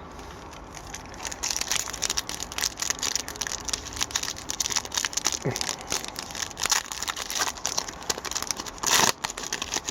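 Wrapper of an Upper Deck hockey card pack being torn open and crinkled: a quick run of crackles, with a louder burst near the end.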